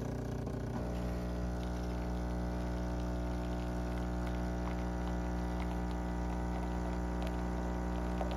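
Jura A1 espresso machine brewing: its pump hums steadily while coffee streams from the spout into a mug.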